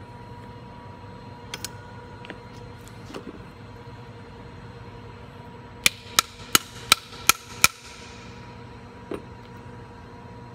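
A metal tool striking the metal gearbox housing of a school bus stop-arm motor six times in quick succession, sharp ringing taps about three a second, as the housing is taken apart. Lighter handling clicks come before and after.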